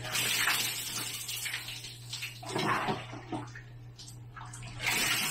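Bucket bath: water poured from a plastic dipper over a person's head and splashing down, in three pours, at the start, about two and a half seconds in, and near the end. A steady low hum runs underneath.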